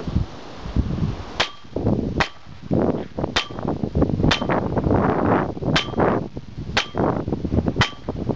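Seven sharp gunshot cracks, roughly a second apart, as bullets strike an HP laptop propped against a metal pole. Each crack has a short metallic ring. Gusts of wind noise on the microphone fill the gaps between shots.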